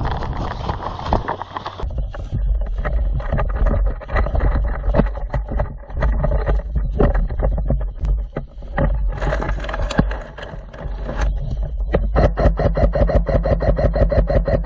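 Irregular knocks and rattles over a low rumble on a body-worn microphone, typical of a player moving with gear. About twelve seconds in, an airsoft electric gun starts firing on full auto: a fast, even string of shots over the whine of its gearbox motor.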